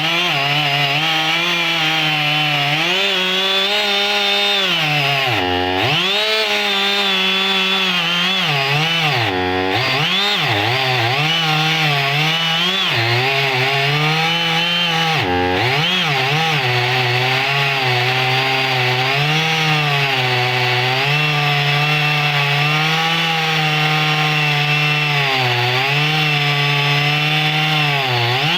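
Husqvarna 55 two-stroke chainsaw running near full throttle while cutting thick firewood logs. Its engine note holds mostly steady and high, with three sharp drops in speed that quickly recover, about a quarter, a third and halfway through.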